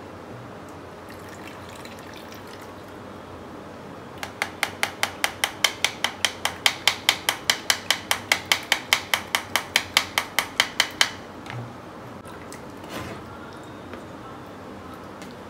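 A steel spoon knocks quickly and evenly, about five times a second for around seven seconds, against a plastic strainer as it works tomato purée through into a bowl. A couple of softer knocks follow.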